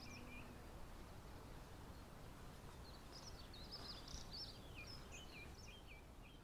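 Faint birdsong: small birds chirping in quick, high notes, busiest in the second half, over a low steady rumble of outdoor background noise.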